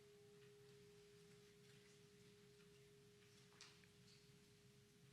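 Faint lingering hum of a memorial bell, tolled for a lost crew member, dying away as one steady tone after its higher ring fades in the first second. A faint click about three and a half seconds in.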